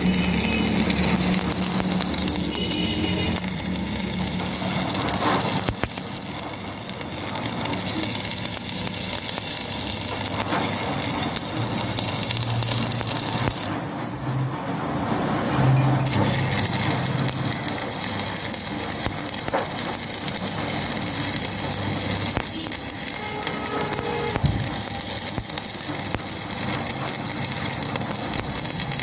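Stick (arc) welding on steel: the electrode's arc crackles and hisses steadily over a low machine hum. The arc breaks off for about two seconds near the middle, then strikes again.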